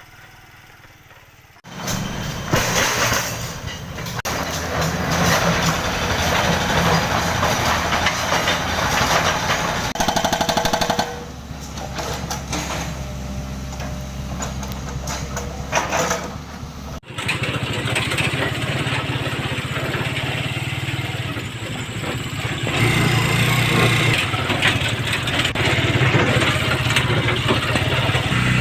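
A motor vehicle's engine running steadily amid dense road noise, with an abrupt break partway through.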